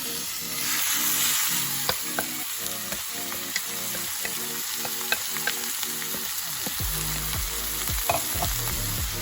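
Steak sizzling in hot oil in a skillet: a steady frying hiss that swells within the first second, dotted with scattered sharp pops.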